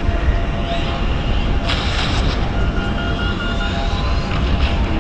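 Steady low rumble of the cruise ship Caribbean Princess under way, heard on an open deck with wind on the microphone. A brief hiss comes about two seconds in.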